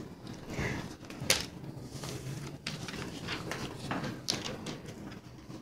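Cat playing on a hardwood floor with a fabric string toy: scattered taps, scrapes and rustles of paws and toy on the boards, with one sharp knock a little over a second in.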